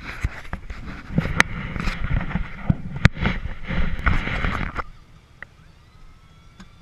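Camera-handling noise as the camera is fumbled into place: rubbing, knocks and bumps on the microphone, cutting off abruptly about five seconds in. After that, a quiet steady low hum of the Toyota Hilux's diesel engine inside the cab.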